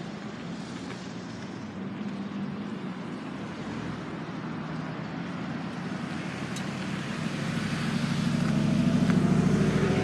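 A motor vehicle's engine running with a steady low hum that grows louder over the last few seconds.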